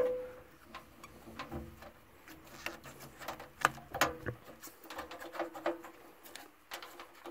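Light clicks, taps and scrapes of a round metal-can run capacitor being pushed into its metal mounting strap on a furnace blower housing by a rubber-gloved hand.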